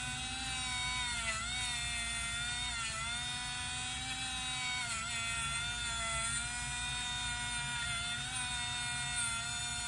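Handheld Dremel rotary tool running at high speed with a small wheel, smoothing and polishing the surfaces of a small trigger part. It makes a steady whine that dips briefly in pitch a few times as the part is pressed against the spinning wheel.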